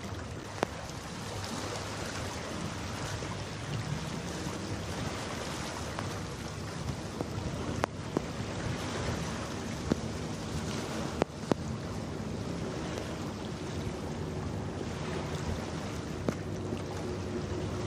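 Outdoor waterside noise: wind on the microphone and water, under a low steady hum of ship engines, with a few sharp clicks.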